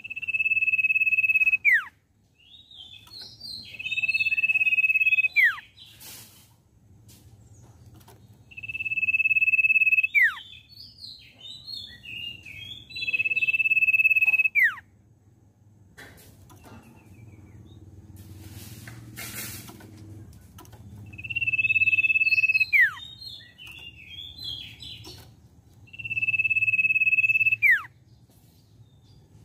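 Common iora singing: long, steady, high whistles, each ending in a sharp downward slur, alternating with quick jumbled chirps, about six phrases with short pauses between them.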